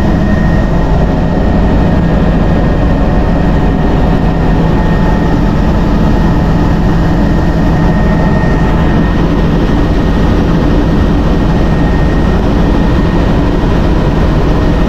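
Helicopter engine and rotor running in level flight, heard from inside the cabin: a loud, even rumble with a thin, steady high whine over it.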